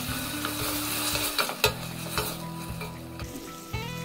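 Diced tomatoes sizzling in hot olive oil with softened onion and garlic in a stainless steel pot, stirred with a wooden spoon that knocks against the pot several times, most sharply about one and a half seconds in.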